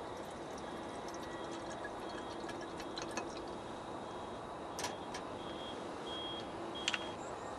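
Light clinks and knocks of camp cookware and utensils being handled on a low table, a few sharp ones near the end, over a steady low hiss.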